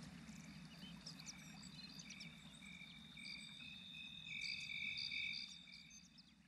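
Faint night-time nature ambience: a chorus of high trilling chirps, typical of crickets and frogs at night. It swells about four seconds in and fades out near the end.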